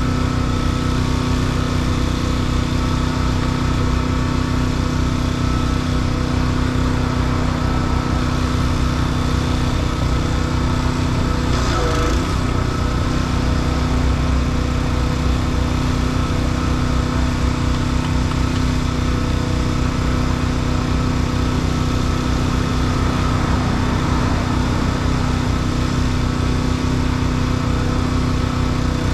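A small engine running steadily at constant speed, with an even hum.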